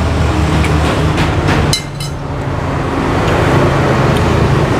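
Steady road traffic noise with an engine's low hum, and a short clatter just under two seconds in.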